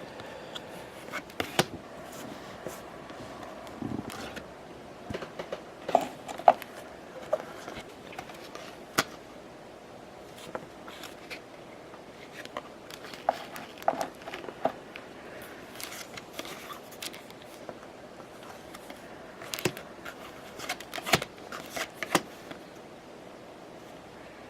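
Baseball trading cards and their pack wrappers being handled: an irregular scatter of soft clicks, taps and rustles as cards are slid and flipped, over a faint steady hum.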